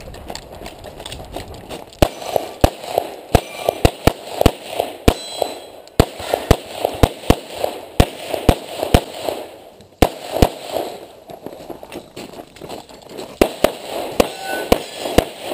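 Rapid strings of pistol shots at a competition shooting range, the shots a few tenths of a second apart, with short pauses between strings.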